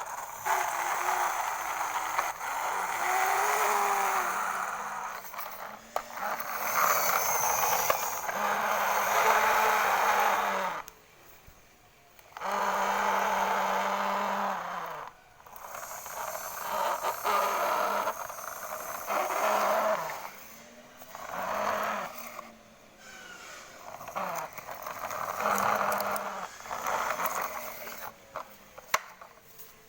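Toy truck sounds coming in repeated bursts of about two to five seconds, separated by short pauses.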